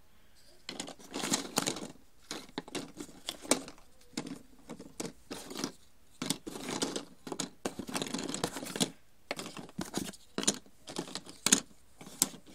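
Cardboard jigsaw puzzle pieces being shuffled, slid and fitted together by hand: an irregular run of rustles, scrapes and light taps.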